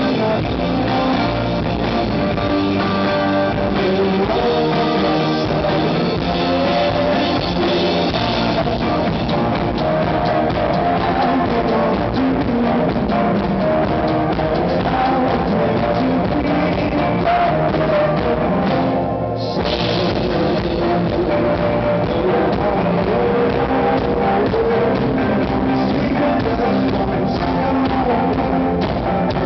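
Live rock band playing: drum kit, electric guitars and singing. The music breaks off for a moment about 19 seconds in and comes straight back.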